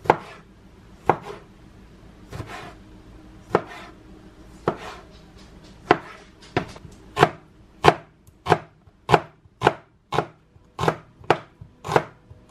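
A large kitchen knife chopping on a plastic cutting board, cutting through small plum tomatoes and then a red onion. The blade strikes come about once a second at first, then quicken to about two a second midway through.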